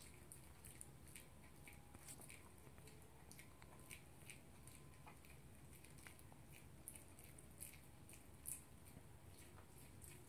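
Toy poodle eating from its bowl: faint, irregular clicks and crunches of chewing.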